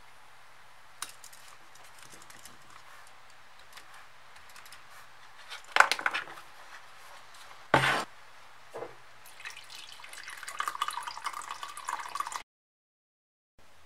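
Leather strap handled on a cutting mat with two sharp knocks, then water poured from an aluminium bottle over the leather into a bowl, splashing for about three seconds before cutting off suddenly. The leather is being wetted for molding.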